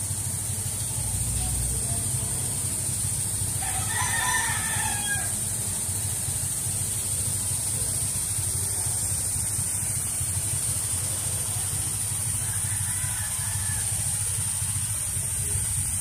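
A rooster crows once, about four seconds in, with a fainter call later, over a steady low rumble and a constant high hiss.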